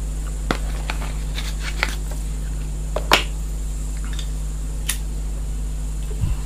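A cigarette pack and cigarette being handled: scattered short clicks and crinkles, the loudest about three seconds in, over a steady low hum.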